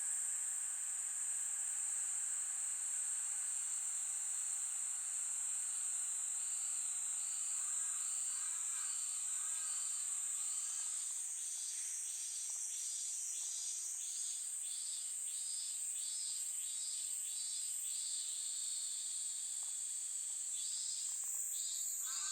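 Insects calling: a steady high-pitched trill, joined from about seven seconds in by a second call pulsing about twice a second.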